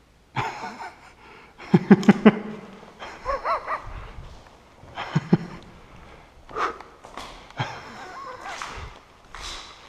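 A person breathing hard and sniffing in short, airy bursts, with a quick cluster of sharp knocks and clatters about two seconds in.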